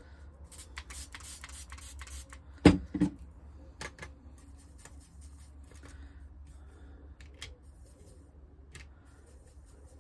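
Small handling sounds of watercolour painting: a quick flurry of scratchy brush strokes working paint on a palette, then two sharp knocks a bit under three seconds in, and a few light clicks over a low steady hum.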